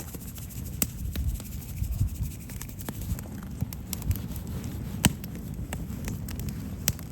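Wood fire in a fire pit crackling, with irregular sharp pops over a low steady rumble.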